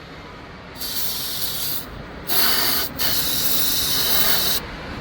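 Aerosol can of starting fluid spraying in three hissing bursts, the last about a second and a half long: a starting-fluid test on an engine that cranks but won't start.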